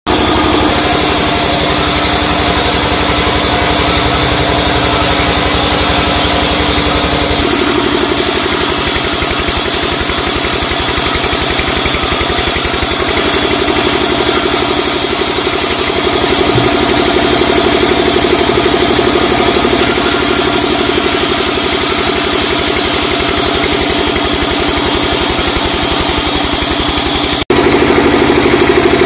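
Sawmill band saw running with a steady, loud mechanical drone as timber is fed through the blade. The drone changes character a few seconds in and gets louder near the end.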